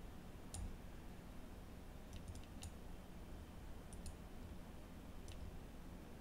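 About seven faint clicks of a computer mouse, single or in quick twos and threes, over a faint low hum.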